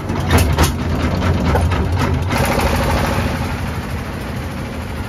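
Changchai L28 diesel engine of a river trawler, just started with a hand crank, running with a heavy low drone. About two seconds in, the sound turns denser and steadier.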